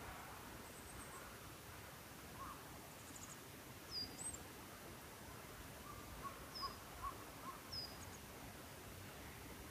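Wild birds calling over a faint steady hiss: a few short high chirps with quick falling-then-rising slurs, from about four seconds in, and a quick row of lower notes near the end.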